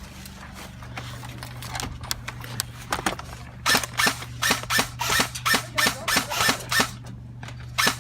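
Airsoft guns firing, a few scattered shots and then a steady string of sharp cracks about three a second from about four seconds in, over a steady low hum.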